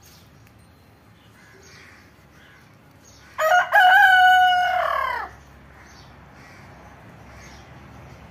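A bird's single loud call about three seconds in: a short note, then a long held note that drops away in pitch at the end, about two seconds in all, over a faint background.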